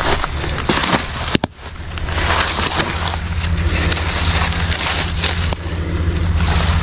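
A truck engine runs steadily at idle underneath, with close crackling and rustling over it and a sharp click about one and a half seconds in.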